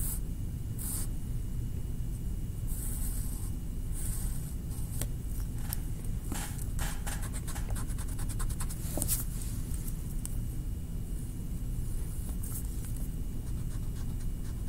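A drawing tool scratching on paper in short, separate strokes, with a quick run of rapid strokes about six to seven seconds in: the shape of a cartoon rabbit's head and ears being drawn. A steady low room hum lies underneath.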